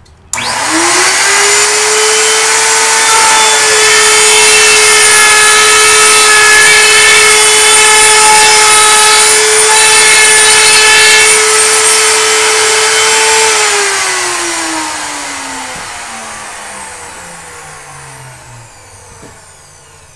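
Router in a router table, fitted with a grooving bit, switched on and spinning up within a moment to a loud, steady high whine. It runs for about 13 seconds, then is switched off and winds down, its pitch falling and fading over several seconds.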